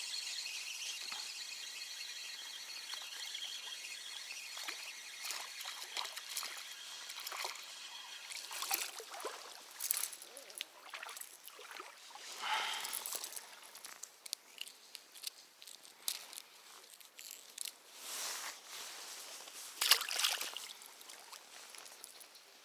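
Water splashing and trickling in short bursts, with clicks and rustles; the loudest splash comes about twenty seconds in. A high, steady insect chirring fades out over the first several seconds.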